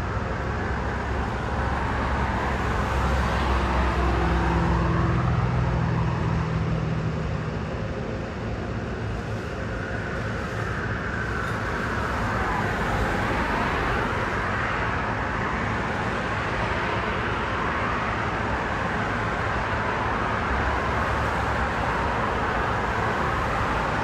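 Road traffic: vehicles passing one after another with steady tyre and engine noise, one engine's low hum rising and fading a few seconds in.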